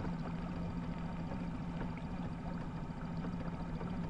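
A small boat's motor running steadily, giving a constant hum.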